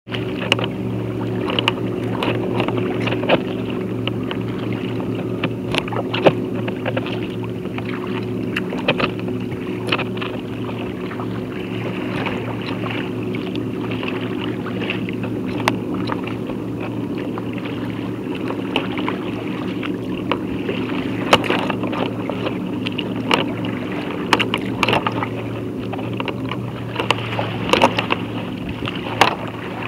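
Choppy water slapping and splashing against the hull of a Wilderness Systems Tsunami 165 sea kayak under way, with sharp splashes at irregular intervals over a steady low hum.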